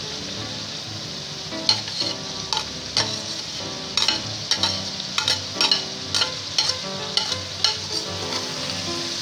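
Vegetables (shredded cabbage, bell peppers and spring onions) sizzling as they stir-fry in a metal pan, with a steady hiss. From about a second and a half in, a metal spatula scrapes and clinks against the pan one or two times a second as it tosses them.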